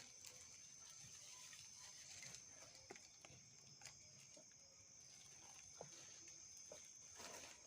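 Near silence: a faint steady high-pitched hum, with a few soft scattered clicks and rustles.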